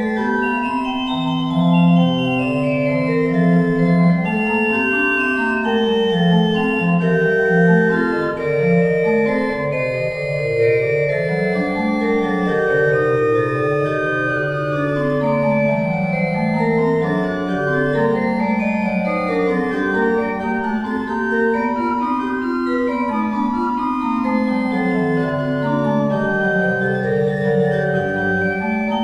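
Church organ playing held chords over a slowly moving bass line, the organ postlude that closes the service.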